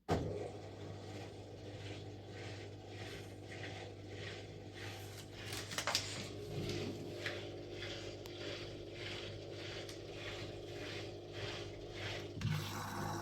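Washing machine running a wash: a steady motor hum with a rhythmic swish about twice a second as the drum turns. The sound changes abruptly near the end.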